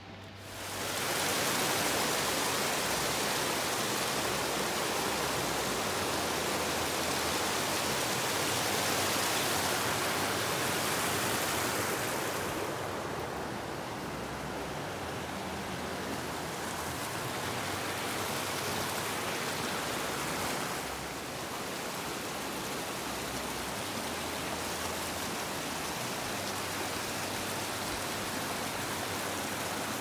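Steady rush of falling and flowing water, from the Staubbach waterfall and a small rocky mountain stream. It is an even hiss that goes duller for a few seconds a little under halfway through.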